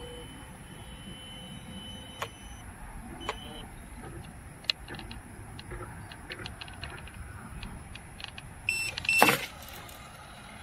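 Radio-controlled fishing bait boat running on a lake, its electric drive giving a steady high whine, with scattered small clicks. About nine seconds in, a short run of electronic beeps, then a brief loud rush of noise as the bait tray tips and dumps its load into the water.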